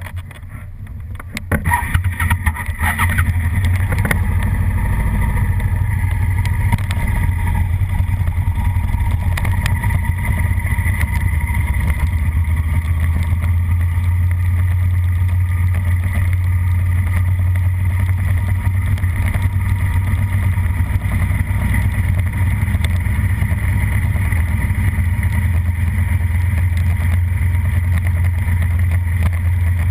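Suzuki SV650 race bike's 90-degree V-twin engine, heard from the bike's onboard camera, getting louder about two seconds in and then running steadily as the bike rides at low speed.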